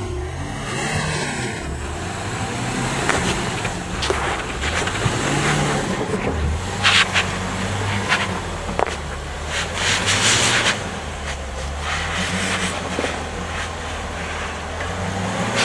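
2013 Range Rover engine running low and steady as the vehicle crawls slowly over rock ledges and sand, with short crunches and scrapes of the tyres on grit and rock, the loudest about seven and ten seconds in.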